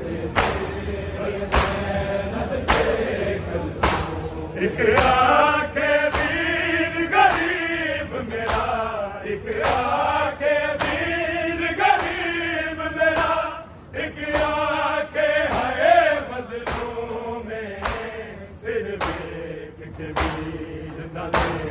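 Men's voices chanting a noha together, fuller through the middle stretch, over sharp chest-beating (matam) slaps that keep a steady beat about once a second.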